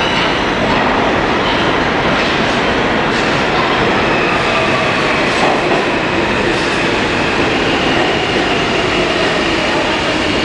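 New York City subway train running into an underground station close by: a loud, steady rush of steel wheels on rail. A few clacks from the wheels and a faint high wheel squeal sit on top of it.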